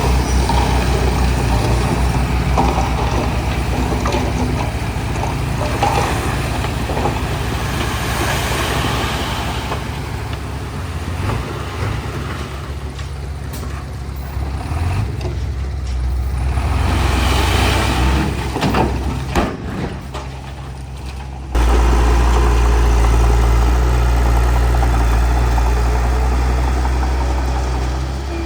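Heavy diesel engine of a bulldozer running. About three-quarters of the way through, the sound jumps suddenly to a louder, steadier low engine drone.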